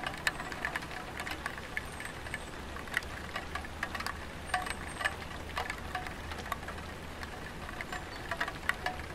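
Light rain dripping onto a tiled roof: scattered, irregular drops tapping, many with a short ringing ping, over a low steady hum.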